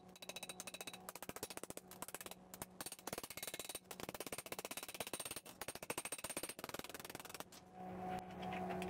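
Rapid, closely spaced light hammer blows on thin galvanized sheet steel held against a steel anvil stake, shaping a ring for a forge blower housing. Near the end the hammering stops and a steady hum comes in.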